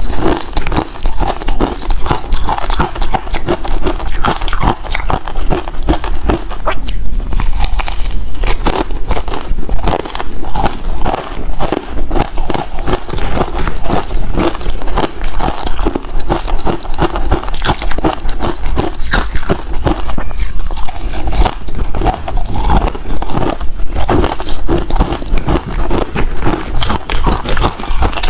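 Ice being bitten and chewed close to the microphone: a dense, unbroken run of sharp crunches and crackles.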